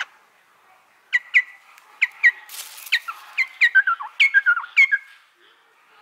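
Garrulax laughingthrush calling: a run of about a dozen sharp, downward-slurring whistled notes, many in quick pairs, turning lower and faster near the end and stopping about a second before the end.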